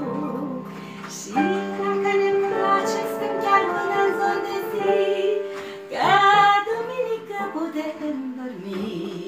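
A woman singing a melody in held, sustained notes over instrumental accompaniment, with her voice swelling loudest about six seconds in.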